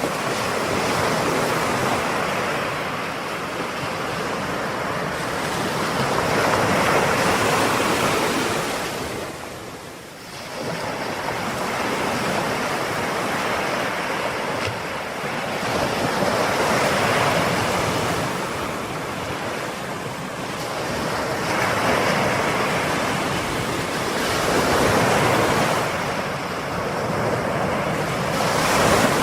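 Ocean waves breaking and washing on a shore, a steady rush that swells and falls back in slow surges every few seconds, with a short lull about ten seconds in.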